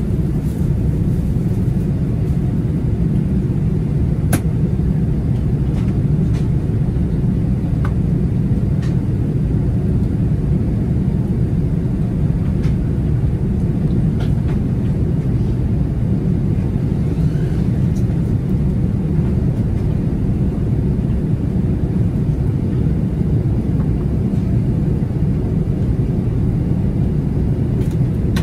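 Steady low rumble in the cabin of an Airbus A380-800 climbing out after takeoff: engine and airflow noise, with a few faint clicks.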